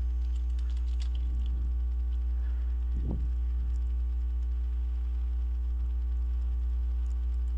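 Steady electrical mains hum with a buzz of its overtones, carried on the microphone. Faint computer-keyboard clicks sound during the first second or so.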